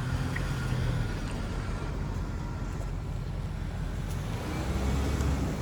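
A vehicle's engine and road noise while driving slowly, a steady low hum.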